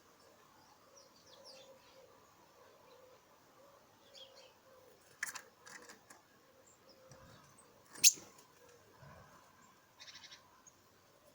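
Garden birds chirping faintly, with a few sharp clicks about five seconds in, one much louder click about eight seconds in, and a brief fast rattle near the end.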